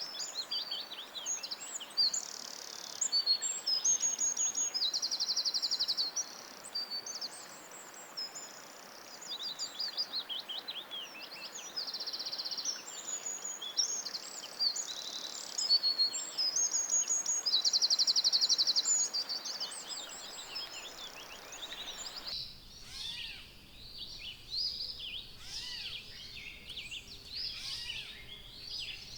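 Several songbirds singing in a forest, with repeated fast, buzzy trills among the chirps and whistles. About three-quarters of the way through the background hiss drops away and the song turns to softer, scattered chirping.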